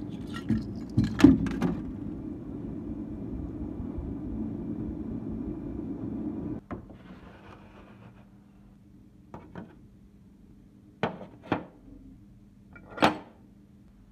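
Carbon-steel Beretta M1935 pistol parts clinking sharply a few times as they are handled in a tray, over a steady hum and noise that cuts off suddenly about six and a half seconds in. After that come several separate knocks as the parts are set down on a hard surface.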